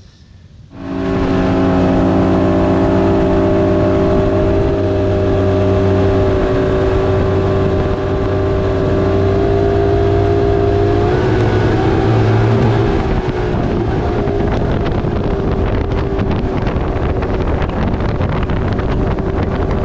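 Nitro Z19 bass boat's outboard motor running at speed, a steady drone mixed with wind and water rush, starting abruptly about a second in. Its pitch shifts slightly about two-thirds of the way through.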